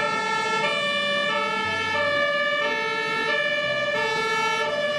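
A repeating electronic tune of held, stepped notes over a steady high tone, siren-like, with a deep note now and then. The phrase comes round about every two seconds.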